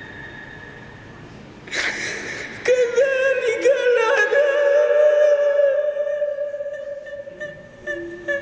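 A long, high-pitched held vocal note in a chanted Quran recitation style. It wavers at first and then holds steady, after a short burst of noise about two seconds in.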